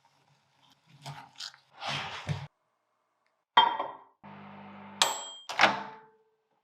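A quick run of kitchen handling sounds: scraping and rustling, a sharp clink with a ringing tone, a short stretch of steady electric hum from a microwave oven running, and two more sharp clicks with ringing near the end.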